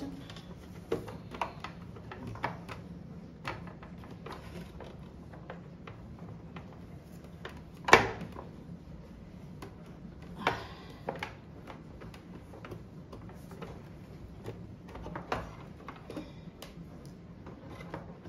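Scattered plastic clicks and knocks from handling an overlock sewing machine's housing and parts during reassembly, with one sharp loud click about eight seconds in.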